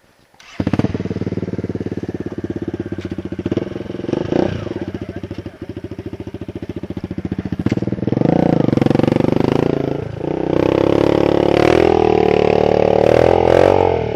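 Kawasaki KLX dirt bike engines, four-stroke singles, running hard as the bikes climb a steep rutted trail. The engine comes in abruptly about half a second in, then revs louder under load from about eight seconds in, with a brief dip near ten seconds.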